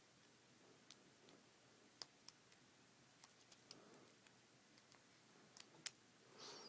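Faint, scattered small clicks of a lock pick and tension wrench working the pins inside a brass Brinks padlock, with a short scrape near the end.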